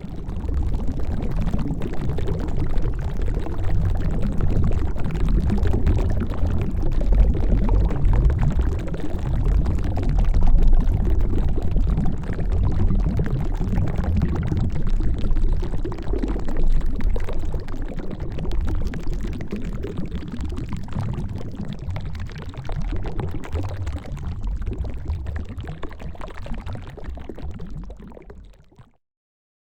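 Water bubbling continuously, a dense low gurgle of irregular bubbles that fades out and stops near the end.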